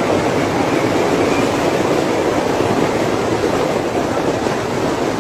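Diesel-hauled passenger train running steadily, a continuous rumbling rush mixed with wind and surf, with no distinct horn or clanks standing out.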